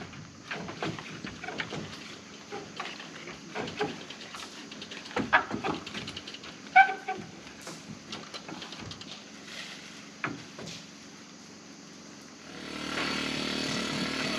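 Scattered knocks and clatter of work going on, then about twelve seconds in a machine starts running with a steady hum that lasts to the end.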